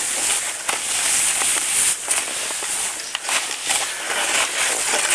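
Continuous crunchy hiss of packed snow scraped underfoot or under a board, with irregular sharp crackles.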